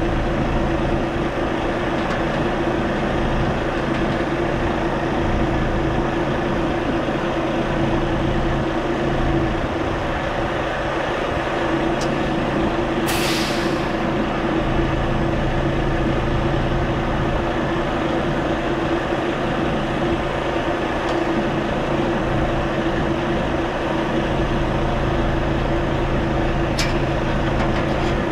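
Heavy truck's diesel engine idling steadily, with one short hiss of compressed air from the air-brake lines about 13 seconds in and a couple of light clicks.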